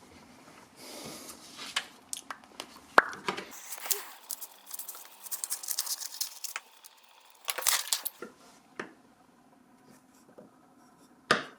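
Irregular rustling and crinkling with scattered sharp clicks, like material being handled, loudest in a run of bursts in the middle and quieter toward the end.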